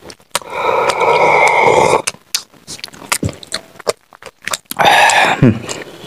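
Close-miked eating and drinking sounds: a long slurping sip from a steel tumbler, then scattered sharp crunching clicks, and a short vocal sound that falls in pitch about five seconds in.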